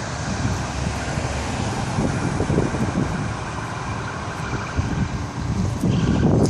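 Wind noise on the microphone, with a low rumble throughout, and an SUV driving past on the road.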